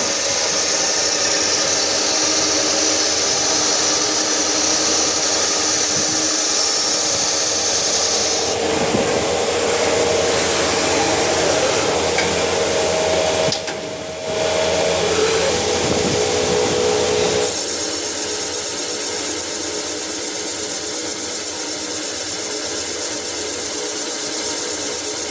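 Combined CNC turning, milling, drilling and tapping special-purpose machine machining metal. A steady hiss of cutting carries a tool whine that changes pitch about a third and again about two-thirds of the way through, with a brief drop in level near the middle.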